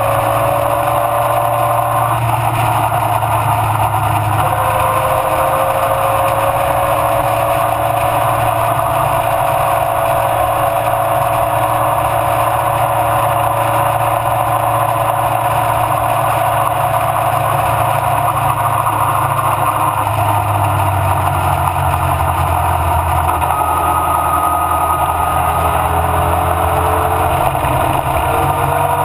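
Mallock Mk8B racing car's engine running continuously, its pitch gliding slowly up and down as the revs change.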